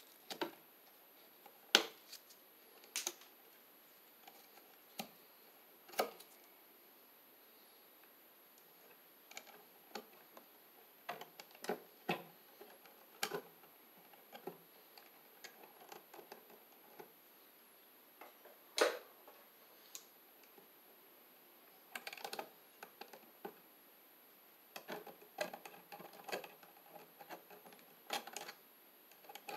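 Pliers and wire strippers working electrical wires at a junction box: irregular sharp clicks and snaps, the loudest about two seconds in and again about nineteen seconds in.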